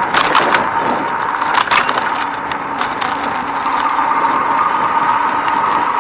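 Steady riding noise from a bicycle rolling along a paved path with a bike-mounted camera, with a hum and rushing air throughout. A cluster of sharp rattling clicks comes right at the start and another about a second and a half in, as the bike and camera mount jolt over the path.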